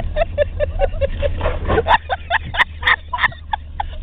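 A car's engine and tyres running with a steady low rumble as it tows a man lying in the snow, while he laughs in quick bursts, about five a second in the first half. A few sharp clicks come in the second half.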